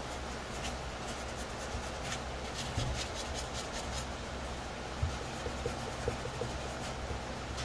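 A fine sanding sponge rubbed by hand over a plastic helmet shell in quick back-and-forth strokes, a dry scratchy scuffing that keys the surface for primer. The strokes are thickest a couple of seconds in, over a steady low hum.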